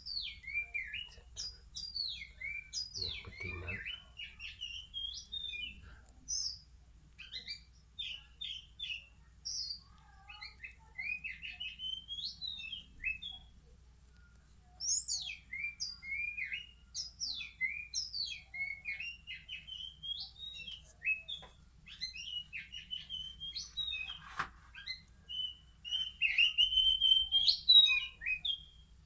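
Young oriental magpie-robins, three weeks old and still in spotted juvenile plumage, chirping and twittering in many short, quick notes that slide up and down in pitch, with a brief pause about halfway through.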